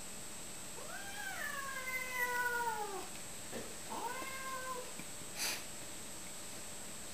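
A cat meowing: one long drawn-out call that falls in pitch, then a shorter call about a second later, followed by a brief breathy burst of noise.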